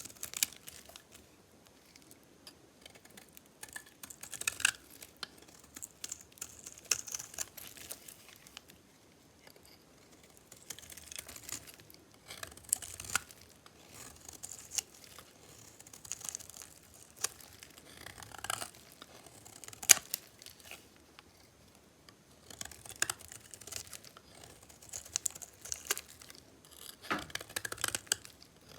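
A knife cutting dry, metallic-painted soap, making crisp scraping and crackling strokes with sharp clicks as pieces break off. The strokes come in runs of a few seconds with short pauses between.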